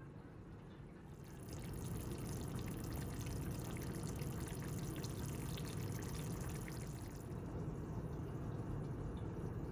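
Liquid, most likely water, poured into a cooking pot: a splashing pour that starts about a second in and stops about seven seconds in, over a steady low rumble.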